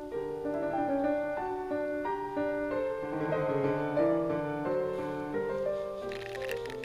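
Background music: a melodic piano or electric-piano tune of short, evenly moving notes.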